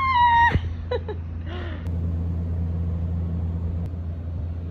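A woman's sharp, high-pitched cry of "Ah!", then a steady low hum that grows slightly louder about two seconds in.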